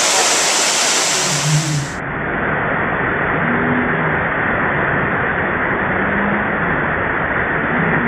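Waterfall rushing down a rock face into a plunge pool: a loud, steady roar of falling water. About two seconds in it turns duller.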